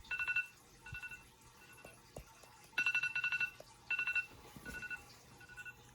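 Electronic trilling beep, a rapid warble on a fixed two-note tone. It comes in short bursts: a loud burst right at the start and again about three seconds in, each followed by fainter repeats that die away like echoes.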